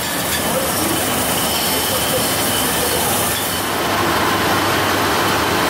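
Beer bottling line running: conveyor and filling and labelling machinery carrying glass bottles, a steady mechanical noise with a faint high whine.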